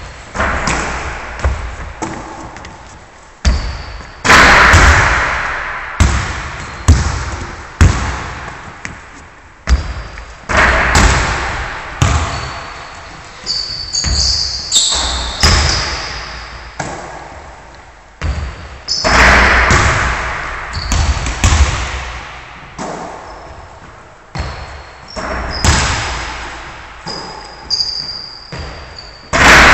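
Basketballs bouncing on a wooden gym floor and striking the rim and backboard during three-point shooting, a thud every second or two, each ringing out in a long hall echo. A few short high squeaks come in the middle and near the end.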